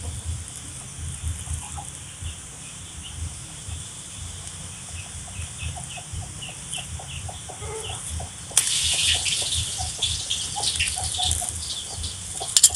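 Chickens clucking in the background while a clear plastic bag over a grafted durian seedling is handled, with a louder stretch of plastic crinkling starting about two-thirds of the way through and two quick scissor snips near the end.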